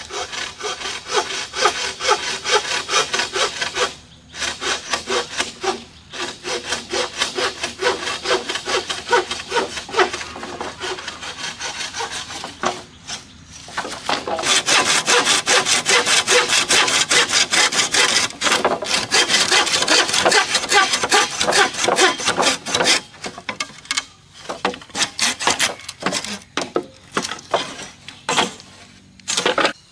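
Hand saw cutting through green bamboo poles in steady back-and-forth strokes, pausing briefly a few times. The strokes turn short and broken near the end as the cut is finished.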